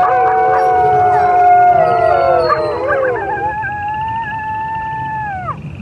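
A chorus of several overlapping howls at different pitches, rising and falling; about halfway through the lower voices stop, leaving one long steady howl that falls away near the end.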